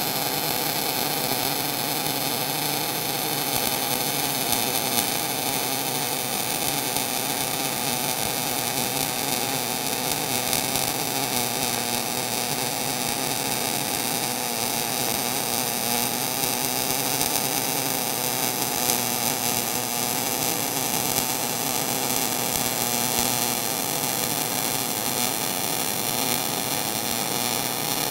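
MIG (gas metal arc) welding arc, solid wire under argon–CO2 shielding gas, burning steadily along a steel butt joint. It gives an even, unbroken crackle with no pauses.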